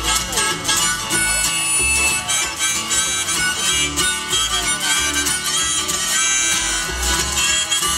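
Live acoustic bluegrass band playing an instrumental break: a harmonica carries the lead over strummed acoustic guitars, mandolin and upright bass.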